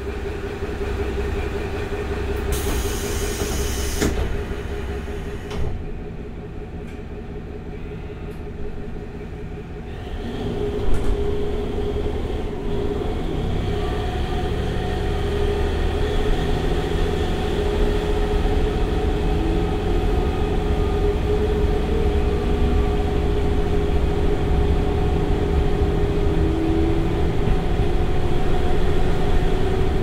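KiHa 183 series diesel railcar's DML30HSI V12 engine idling, heard from inside the car's vestibule, with a brief hiss of air about three seconds in. About ten seconds in the engine throttles up as the train starts off under power in torque-converter stage, running louder and slowly building.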